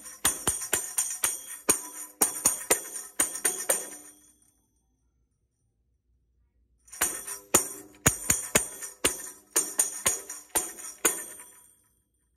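Wooden-framed tambourine struck in a steady beat of about two to three hits a second, its jingles ringing with each hit. It stops for about three seconds, the cue to freeze, then plays again and stops just before the end.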